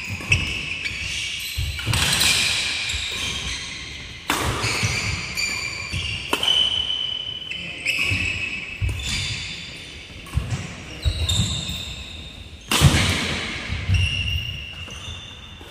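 A fast badminton doubles rally: rackets strike the shuttlecock sharply about once every second or two, with shoes squeaking on the court floor between shots, all echoing in a large hall.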